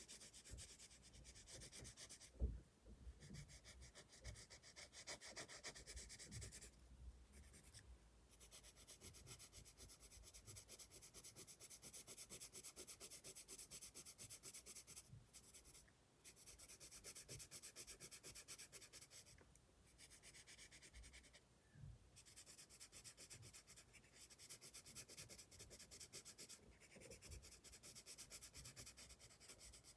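Pencil shading on sketchbook paper: fast back-and-forth scratchy strokes with short pauses where the pencil lifts. A brief knock about two and a half seconds in.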